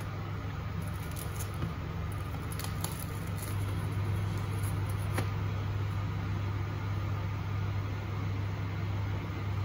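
A steady low machine hum, with a few faint light clicks during the first half and one a little after the middle.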